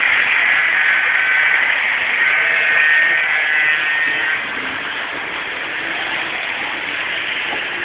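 O-gauge model freight train cars rolling along three-rail track: a steady rushing rumble with a faint high whine, dropping in level a little past four seconds in.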